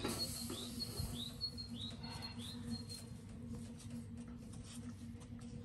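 A pot of porridge on a small cast-iron wood stove hums steadily with a low, even tone. Small birds chirp over it, about six quick falling chirps in the first half.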